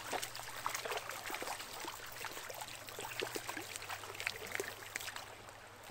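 Shallow river riffle running steadily, with irregular splashes from a small hooked brown trout thrashing at the surface close by.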